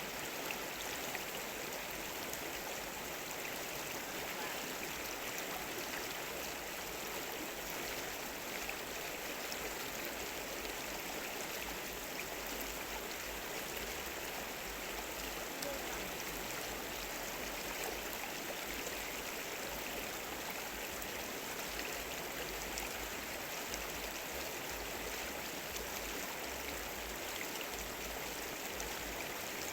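River water flowing steadily, an even rushing sound.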